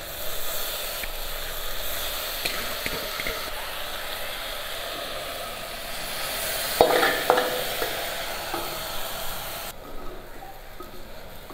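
Rice sizzling as it goes into hot ghee with fried potatoes, peas and soya chunks in a pressure cooker, stirred with a spoon that clicks and scrapes against the pan. The strikes are loudest about seven seconds in, and the sizzle dies down near the end.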